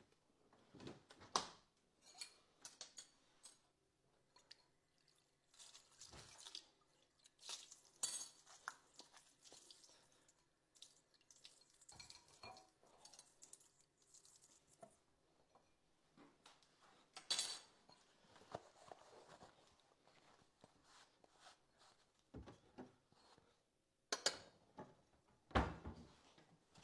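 Dishes, glasses and cutlery clinking and knocking now and then as a dishwasher is unloaded, with longer quiet gaps between the handfuls.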